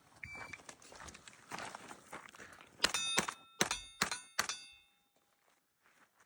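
About five quick airsoft shots, each BB striking with a metallic ping that rings on briefly, close together about three to four and a half seconds in. Light shuffling and handling noise comes before them.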